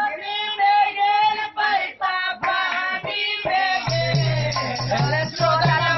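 Bhojpuri song with a high voice singing over the music, played as dance music. A steady low tone joins underneath about four seconds in.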